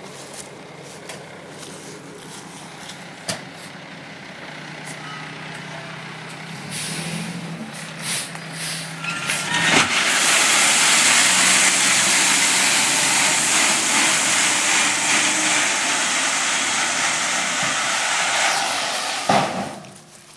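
Dump truck's engine running with its bed raised; about halfway through, a load of #57 gravel starts sliding out of the tipped bed in a loud, steady rush that stops shortly before the end.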